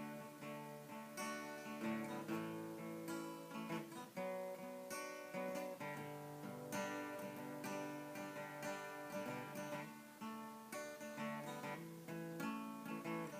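Acoustic guitar strummed steadily, playing the instrumental intro of a folk tune with regular chord strokes.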